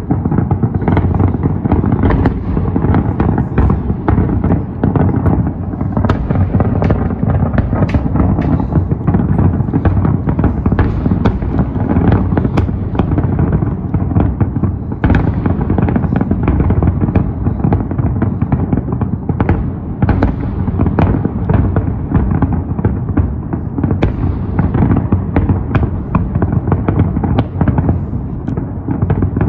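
Fireworks display going off in a dense, unbroken barrage: many bangs a second, overlapping, over a continuous low rumble.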